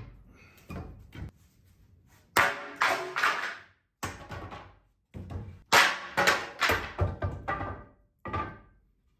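Hammer and pry bar knocking old wooden shelving and boards loose from garage wall studs: a dozen or so sharp knocks and thuds, clustered in quick runs.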